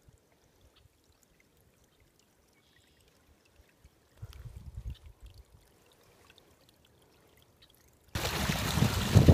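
Near silence, with a short low rumble about four seconds in, then about eight seconds in a loud, steady rush of water starts up: water pouring through a gap in a beaver dam.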